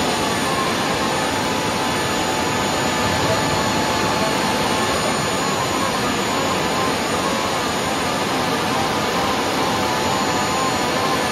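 Hydraulic pumps powering an Airbus A320's landing gear system, running with a steady, loud machine noise while the main landing gear is retracted in a gear swing test.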